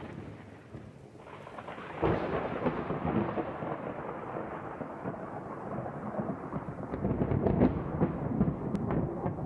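A dense, low rumble like rolling thunder that comes in suddenly about two seconds in and goes on, swelling again near the end.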